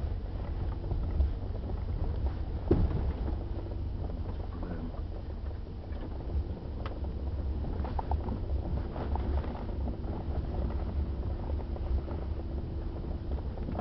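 Inside an SUV's cabin as it drives slowly over a rutted dirt track: a steady low rumble of the engine and tyres, with occasional knocks as the car bumps over the ground, the sharpest about three seconds in.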